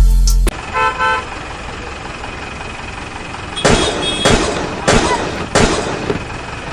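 Motor vehicle running with a steady rumble, a short two-note horn toot about a second in, then four louder rushing surges later on.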